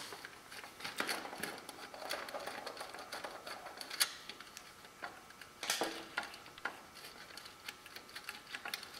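Hand nut driver loosening the nut that bolts the ballast into a sheet-metal fluorescent light fixture: irregular small metallic clicks and scrapes, with a few sharper clicks.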